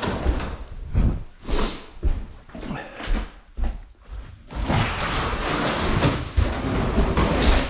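Demolition debris being handled during a house cleanout: a run of thuds and knocks as pieces of lath, plaster and boards are picked up and dropped, then about three seconds of continuous scraping and rustling as debris is dragged or shifted.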